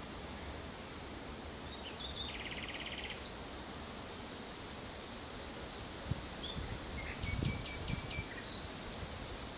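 Common nightingale singing two phrases over a steady background hiss: a fast run of repeated notes about two seconds in, then a phrase of sharp clicking notes and whistles from about six and a half seconds. Low rumbles come during the second phrase.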